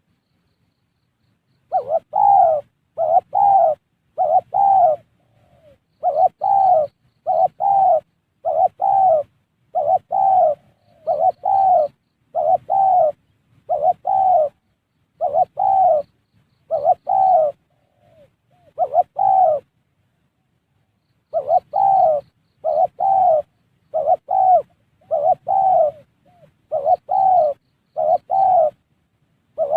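Spotted dove (tekukur) cooing: a long series of short, low coos about one a second, in runs broken by brief pauses.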